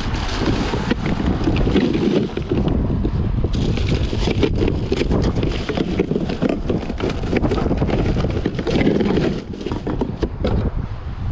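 Wind buffeting the microphone in a steady low rumble, with a run of clicks and knocks from about three seconds in as a plastic cooler lid is handled.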